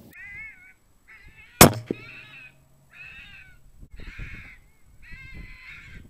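FoxPro electronic caller playing a vixen-on-heat call: short pitched calls repeated about once a second. About one and a half seconds in, a single sharp shot from a moderated Sako 75 rifle in 6PPC, the loudest sound, with a softer knock just after it. The shot is the one that drops the second fox.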